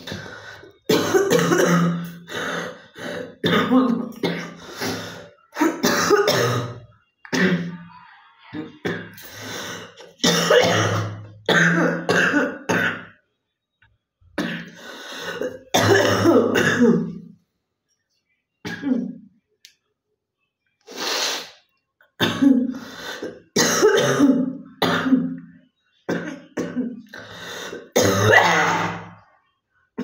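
A woman coughing and clearing her throat over and over in separate bouts with short pauses, a real chest cough as she tries to bring up phlegm.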